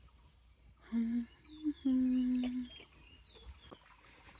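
A person humming three short, steady notes, with faint high insect chirping behind.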